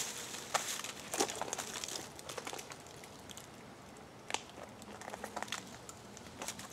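Dry leaves and brush crackling and rustling, with scattered sharp snaps and clicks, as a man hangs his weight from a hiking stick hooked over a tree branch and scrambles against the trunk.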